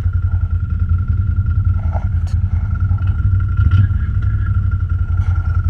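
ATV engine running steadily at low speed, a fast-pulsing low rumble with a thin steady high tone over it.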